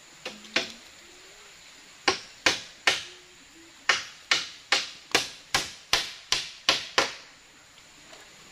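Repeated sharp blows of a hand tool on the bamboo treehouse frame: two strikes, then three, then a steady run of nine at about two and a half a second.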